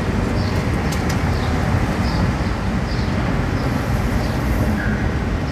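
City street ambience: a steady rumble of traffic, with short high chirps repeating at a fairly even pace over it.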